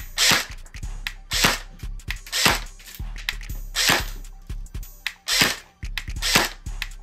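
Umarex HK 416 low-power airsoft electric gun firing single shots, six in all, about one a second, through a chronograph.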